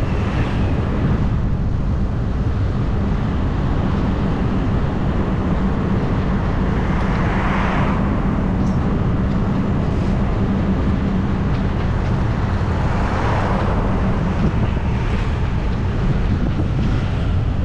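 Steady drone of a vehicle travelling along a street, with a constant low hum and wind rushing over the microphone. The noise swells briefly about seven seconds in and again near thirteen seconds.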